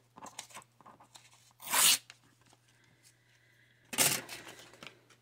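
Paper tearing in two short rasps, the first about two seconds in and the second near four seconds, with light rustling and ticks of paper being handled between them.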